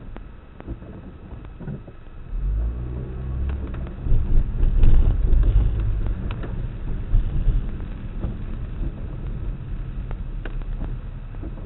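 Car engine and road noise heard from inside the car: a low steady hum that swells about two seconds in as the engine pulls harder, loudest in the middle, then settles back to a steadier drone.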